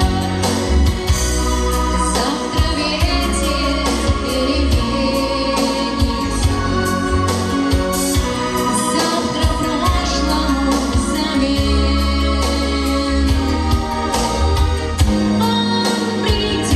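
A female vocalist singing over a backing track, with a steady beat and bass.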